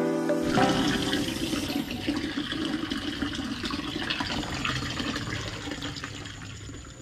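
Water running from a spout in a stone wall and splashing steadily into a pond, growing quieter toward the end. The tail of background music is heard at the very start.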